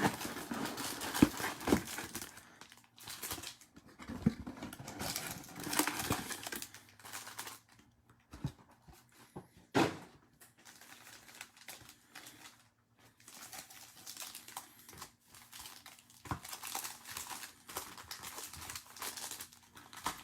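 Plastic wrapping of a trading-card box and its packs crinkling and tearing as it is opened, in irregular bursts with a few sharp clicks and taps.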